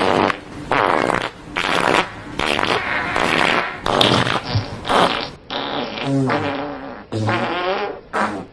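Fart sound effects, a string of about nine short bursts one after another, each sputtering and cutting off. The later ones, from about five and a half seconds in, carry a held buzzing tone.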